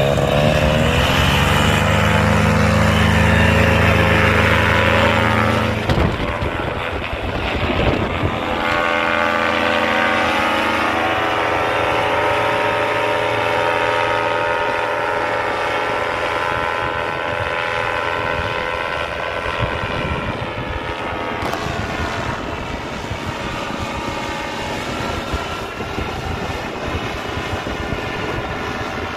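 Paramotor engine and propeller throttled up, the pitch rising over the first couple of seconds, then running at a steady high-power drone that slowly grows fainter.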